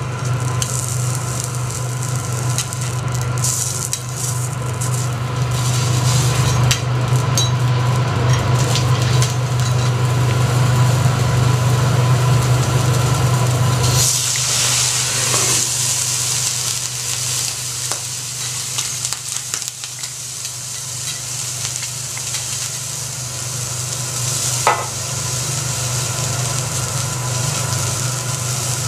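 A prawn sizzling on a hot steel teppanyaki griddle over a steady low hum, with light taps of a knife on the plate. About halfway through, liquid ladled onto the hot griddle sets off a sudden loud hiss of steam that fades over a couple of seconds. The sizzling goes on after that, with a single knock late on.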